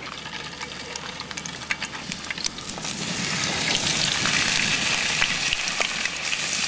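Mackerel steaks frying in hot oil in a pan, a crackling sizzle that gets louder about three seconds in.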